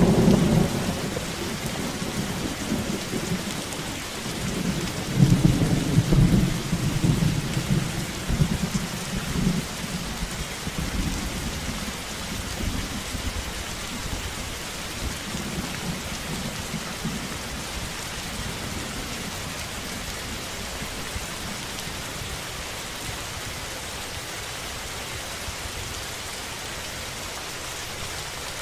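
Steady rain falling, with thunder rumbling: one peal dies away at the start, another swells about five seconds in and fades over several seconds, leaving only the rain.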